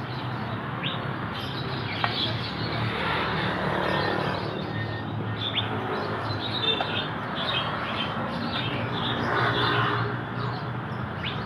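Many caged songbirds chirping and twittering in short, scattered calls, over a steady low background noise.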